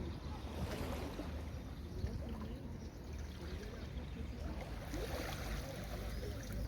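Sea waves washing onto a beach, the wash swelling about half a second in and again around five seconds in, over a steady low rumble.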